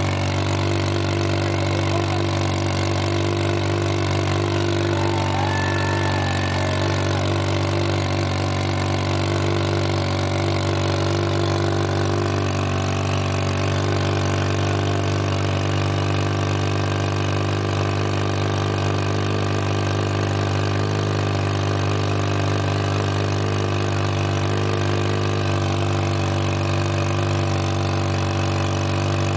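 Chopper motorcycle engine held at steady high revs during a stationary burnout, spinning the rear tyre. The pitch barely changes, with only slight shifts about two-thirds of the way through.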